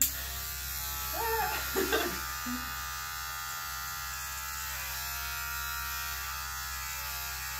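Electric hair clippers running with a steady buzz, shaving hair at the side of a woman's head. A brief voice sound comes about one to two seconds in.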